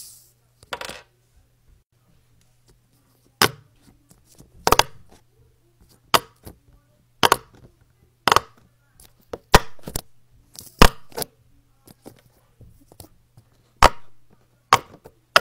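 Silicone pop-it fidget toy's bubbles being pressed flat, a sharp pop about once a second, some in quick pairs.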